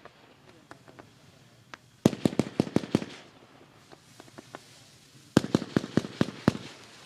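Pyroworx Quiet Riot 2 firework going off: two rapid volleys of about eight sharp cracks each, a few seconds apart, with a few faint pops between.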